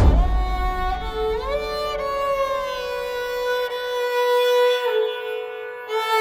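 Background music: a bowed string melody, violin-like, sliding up into long held notes.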